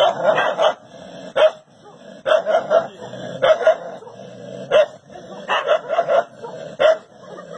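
A dog barking over and over, in quick runs of three or four barks with single barks between them.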